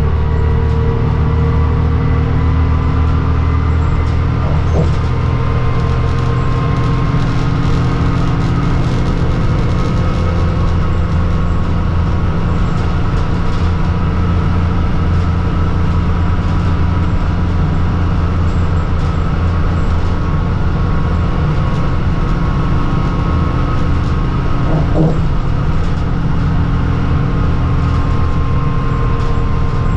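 New Flyer D40LFR diesel bus running steadily at speed: a constant low engine and drivetrain drone with road noise, heard from inside the bus.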